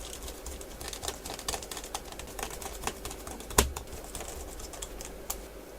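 Small clicks and taps of a screwdriver and hand working the screws that fasten a replacement battery into a Medion laptop, with one sharper knock about three and a half seconds in.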